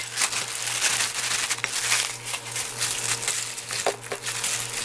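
Disposable plastic glove and bag crinkling as a gloved hand works thin, still partly frozen slices of pork belly into a thick gochujang marinade in a glass bowl: a run of quick, irregular rustles and wet crunches.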